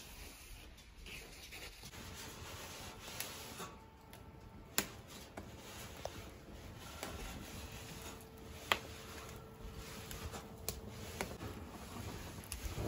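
Split firewood burning and crackling in a metal outdoor fireplace, with scattered sharp pops, two louder ones about five and nine seconds in.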